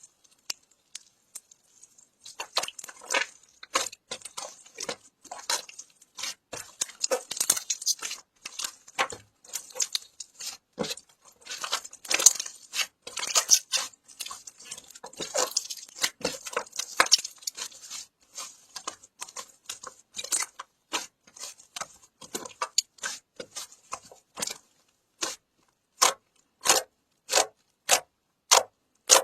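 Quick irregular clicks, taps and crackles of something being handled, over a faint high hiss. Near the end they change to single evenly spaced taps, a little more than one a second.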